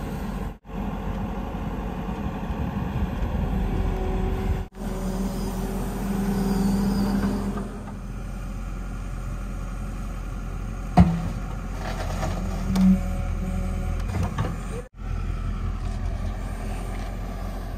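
JCB 145 tracked excavator's diesel engine running under load as it works its hydraulics, the engine and hydraulic hum swelling for a couple of seconds about a third of the way in. A sharp metallic knock sounds about eleven seconds in.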